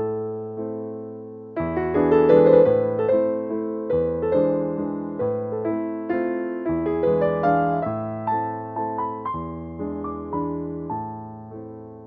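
Background piano music: a slow, gentle tune of notes struck one after another and left to ring and fade.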